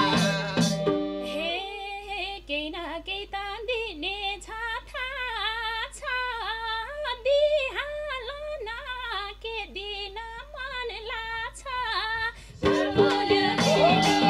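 A Nepali folk (dohori) band stops and a woman sings a slow, ornamented solo line over a held harmonium note, her voice sliding and wavering from note to note. Near the end the madal drums and the rest of the band come back in loudly.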